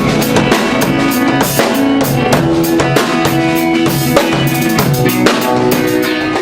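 Rock band playing an instrumental passage without vocals: drum kit with kick, snare and rimshots to the fore, over bass and guitar.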